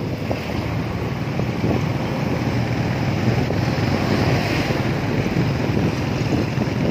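Wind buffeting the microphone of a moving motorcycle, over the steady running of its engine and road noise.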